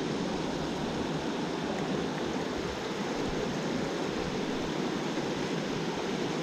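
Small freestone mountain stream rushing steadily over its rocks, a continuous even wash of moving water.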